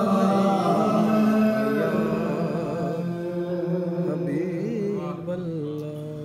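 Unaccompanied male voice chanting a devotional salutation to the Prophet in long held notes that waver up and down, growing quieter near the end.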